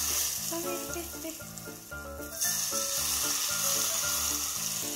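Hot cooking oil poured onto sliced garlic and bird's-eye chillies in a bowl, sizzling hard. The sizzle eases briefly about two seconds in, then comes back stronger.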